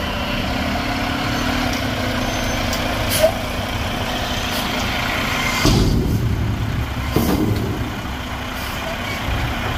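Mack MRU front-loader garbage truck's engine running as the truck manoeuvres. Its low rumble swells louder for a couple of seconds a little past the middle, with a sharp click or two.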